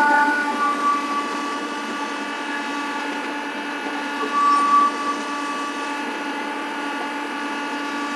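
Kubota compact tractor's diesel engine running at a steady throttle, with a steady high whine over it, while it drags a box blade along a gravel driveway. The sound swells briefly at the start and again about halfway through.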